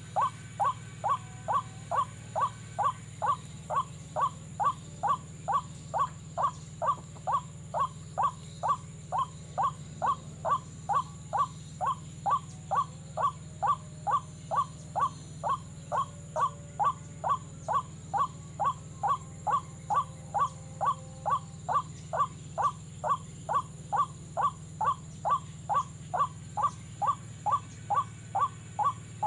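White-breasted waterhen call played as a lure: a short call repeated evenly about twice a second, at an unchanging level, over a steady low hum.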